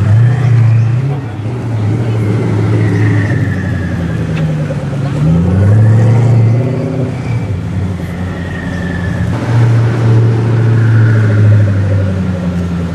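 Koenigsegg Agera R's twin-turbo V8 driving at low speed in traffic, a loud, deep engine note that rises in pitch as the car accelerates about five seconds in and swells again near the end as it pulls away.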